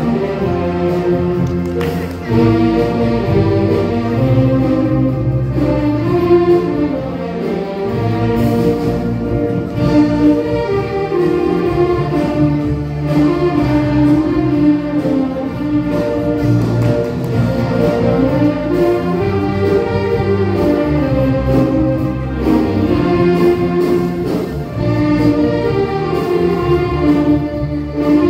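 Amateur community band playing a melody over sustained accompaniment, loud and continuous.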